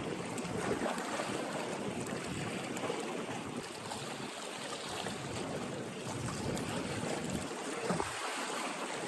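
Steady noise of water at the shoreline, with wind.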